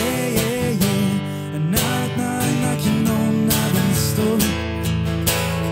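Live acoustic guitar strumming, with a wordless sung vocal line wavering over it for the first four seconds or so, then guitar alone.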